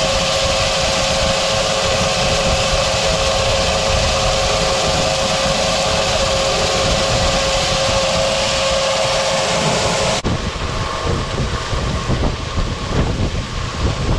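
Grain auger running, shelled corn pouring from its spout into a semi's hopper trailer with a steady hum and hiss. About ten seconds in the sound cuts abruptly to gusty wind on the microphone over the running auger.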